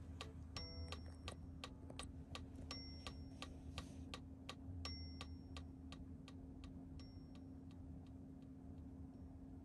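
Background music tailing off: an even clock-like ticking, about four ticks a second, with a short high chime about every two seconds, fading out.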